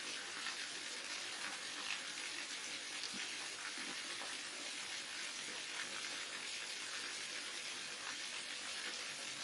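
Water falling and splashing steadily, a small waterfall's continuous rushing hiss with small splashes mixed in.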